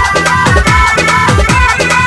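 Loud DJ dance music: a deep electronic kick drum that drops in pitch on every beat, under a held high melody line.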